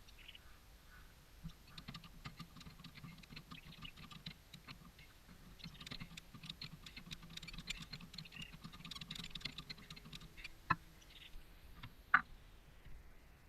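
Faint, irregular small clicks and ticks over a low steady hum, with two sharper clicks near the end.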